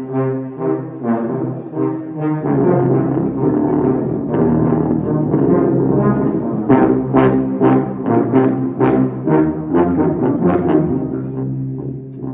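Tuba and euphonium ensemble playing in full harmony: sustained low chords, then about halfway through a run of short accented notes at roughly two a second, easing to a softer held chord near the end.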